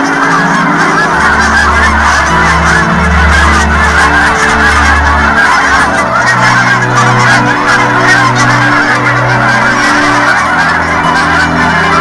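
A large flock of Canada geese honking together in a dense, unbroken chorus of overlapping calls, with low held tones underneath.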